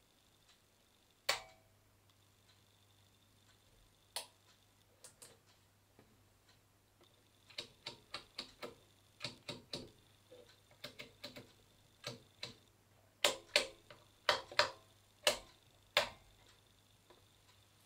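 Mechanical clicks from the Technics SU-V2A amplifier's front-panel controls: a sharp click about a second in as it is switched on, another about four seconds in, then a quick run of detent clicks as a rotary selector knob is turned, and louder single switch clicks near the end.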